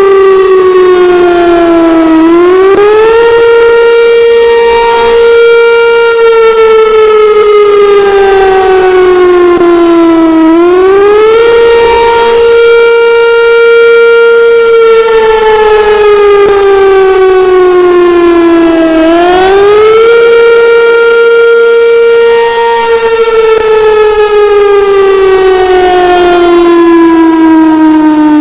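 Sentry 7V8 civil defense siren sounding a wail. Its single tone climbs quickly, holds at the top for about three seconds, then slowly falls, repeating in cycles of about eight seconds.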